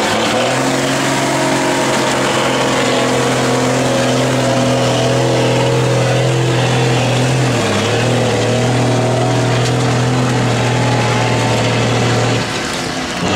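Diesel engine of an off-road trial truck held at steady high revs under load as it climbs a steep slope. The engine note dips briefly in pitch a little past halfway, then falls away near the end.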